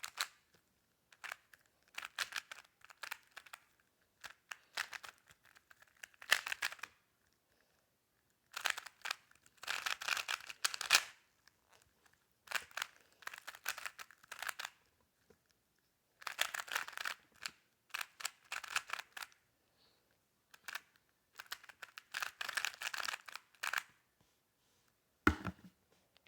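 A smart Rubik's cube being turned very fast in a speedsolve: rapid plastic clicking and rattling of the layers, in bursts of one to two seconds with short pauses between them. A single thump comes near the end.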